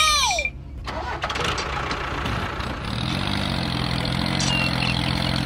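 Tractor engine running with a steady, even hum that settles in about three seconds in, after a short high-pitched cartoon-voice cheer at the very start.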